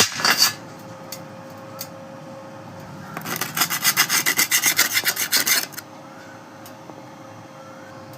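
Rapid rasping, scraping strokes, about ten a second: a short spell at the start and a longer one of about two and a half seconds in the middle, with a faint steady hum in between.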